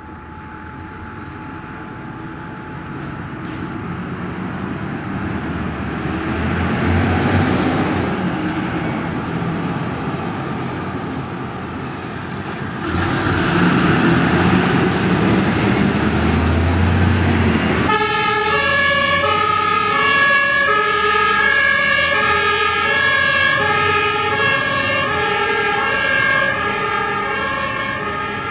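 A MAN HLF 20 fire engine's diesel engine running and revving as it pulls away and accelerates. About two-thirds of the way in, its German two-tone siren (Martinshorn) starts, alternating evenly between a high and a low note.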